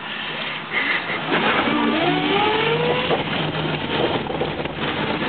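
BMW 2002 electric conversion pulling away: whine from its NetGain Warp9 DC motor and drivetrain, rising in pitch from about a second and a half in as the car gathers speed, over steady road noise.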